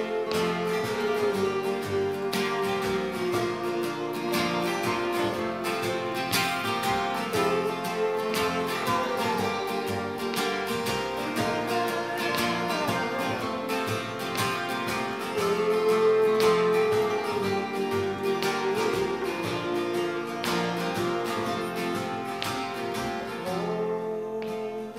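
Acoustic folk band playing an instrumental passage: two acoustic guitars strummed and picked over a plucked upright bass, with long held, slightly bending melody notes above. The playing thins out near the end.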